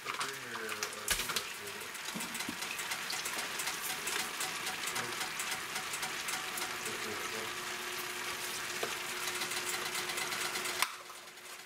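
Cabbage, potatoes and sliced sausages sizzling with a steady fine crackle as they fry in a pan; the sizzle cuts off suddenly near the end.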